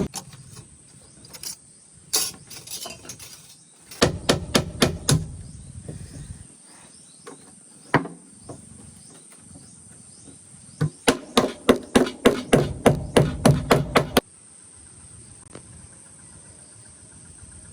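Runs of sharp knocks or clacks, the longest a quick series of about four a second that stops suddenly, over a steady high trill of insects.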